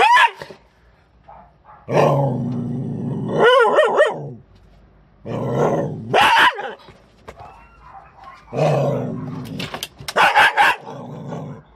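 Dog growling in long low rumbles, each broken off by a few sharp barks, about three rounds in a row: a warning at someone at its crate door.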